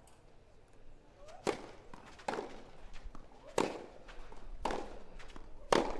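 Tennis ball struck back and forth by rackets in a rally: five sharp hits, roughly one a second.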